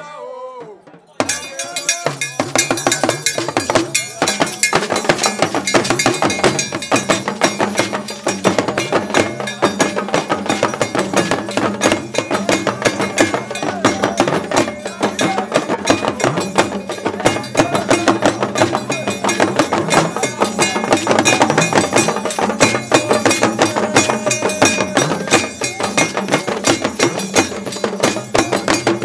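Traditional Yoruba drum ensemble playing fast, dense rhythms: hourglass talking drums with hand-held iron percussion clanking over them. The drumming starts about a second in.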